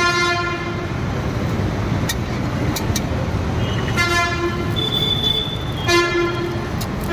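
Vehicle horns honking over steady road-traffic noise: a horn blast right at the start, two more about four and six seconds in, and another just as it ends.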